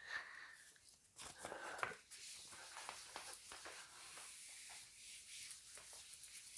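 Whiteboard being wiped with a handheld eraser: a faint, steady rubbing hiss broken by short strokes, starting about two seconds in.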